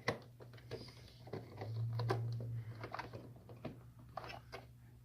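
Faint scattered clicks and light scraping of a small metal lock cylinder being handled and wiggled into a freshly drilled hole in the brake lock housing.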